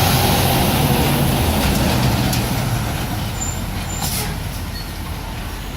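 A semi truck passing close by at speed, its engine rumble and tyre noise loudest at first and fading away as it goes.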